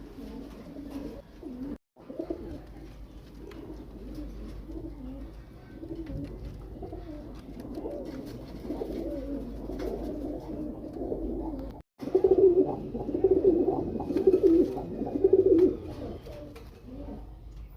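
Pigeons cooing: low, throaty warbling that runs on throughout and grows louder about two-thirds of the way in. The sound cuts out twice for a split second.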